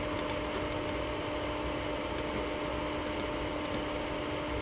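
Steady hiss with a constant low hum from a TYT TH-9000D VHF FM mobile radio's speaker, the channel held open between transmissions with no voice on it. A few faint ticks come through.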